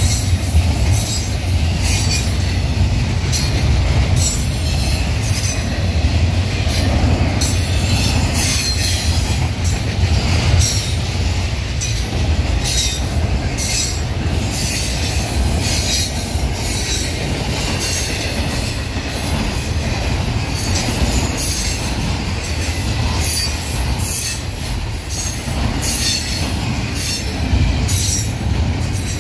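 Double-stack intermodal freight train's container well cars rolling past: a steady low rumble of steel wheels on rail, with frequent short high-pitched wheel squeals and clanks.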